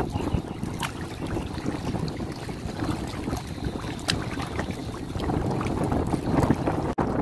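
Shallow water sloshing and lapping around a person sitting in it, with wind buffeting the microphone and a few small splashes; the sound cuts out for an instant near the end.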